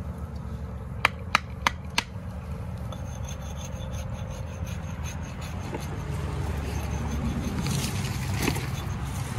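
Four sharp knocks, about a third of a second apart, as a hatchet strikes a wooden trap stake. A few seconds of scraping and rubbing follow as the stake is worked in at the water's edge.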